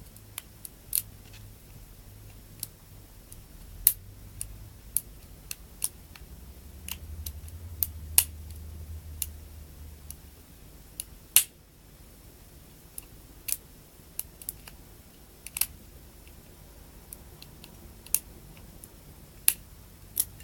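Lock pick and tension wrench working the pins inside a five-pin discus padlock during single-pin picking: irregular sharp metallic clicks, a few at a time, with pauses between.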